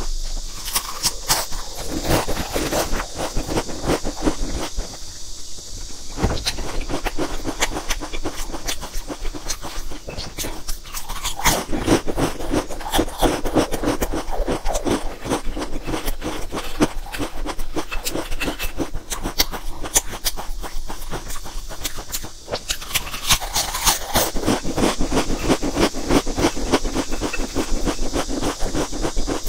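Close-miked crunching and chewing of crisp potato chips: a fast, uneven run of sharp crackles, easing off briefly a few times between bites.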